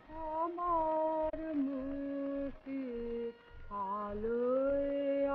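A solo voice singing a slow melody, with long held notes that glide from one pitch to the next and short pauses between phrases.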